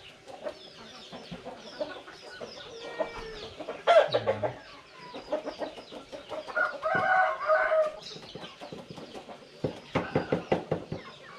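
Chickens clucking, with short high chirps throughout, a loud call about four seconds in, a longer held call around seven seconds and a quick run of clucks near the end.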